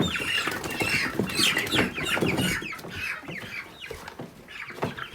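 A flock of Cornish Cross broiler chickens clucking and squawking as they are being caught, many short overlapping calls, with a few sharp knocks among them.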